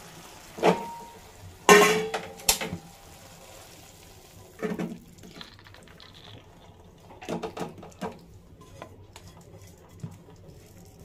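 A nonstick frying pan clattering against a steel bowl as its cooked contents are tipped out and scraped down with a silicone spatula: several short knocks spread through, the loudest about two seconds in with a brief metallic ring, and soft scraping between them.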